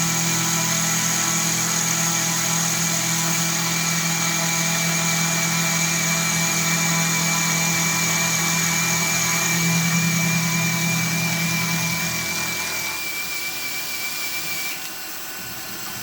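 Milling machine taking a light facing cut on a hydrostatic pump plate while a cordless drill drives the table feed. A steady whine and hum; the hum drops away about thirteen seconds in, and a high tone carries on until shortly before the end.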